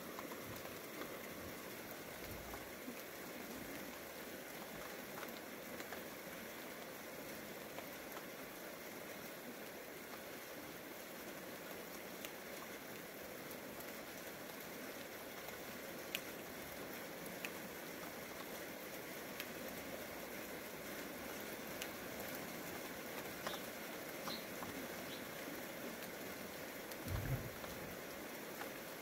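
Light rain falling steadily, an even hiss with scattered sharp drop ticks, and a brief low thump near the end.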